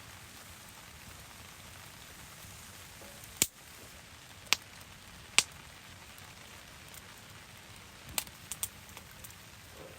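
Steady rain falling while a wood campfire crackles, with several sharp pops of burning wood: three spaced about a second apart midway, then a quick cluster of three near the end.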